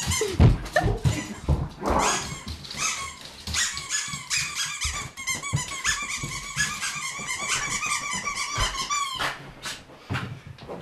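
A dog's squeaky toy squeaking rapidly and over and over while a puppy plays with it, cutting off about nine seconds in. A few dull thuds come at the start.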